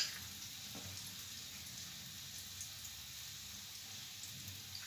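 Faint, steady sizzle of chopped garlic frying in butter and oil in a frying pan, with a light click at the start.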